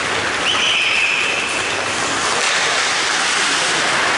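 Steady scraping and hiss of ice hockey skates gliding and cutting across rink ice during play, with a brief high squeal about half a second in.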